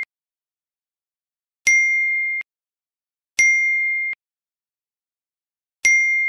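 Smartphone notification chime dinging three times, roughly every two seconds. Each is a clear single-pitched ding under a second long that cuts off abruptly: incoming messages arriving one after another.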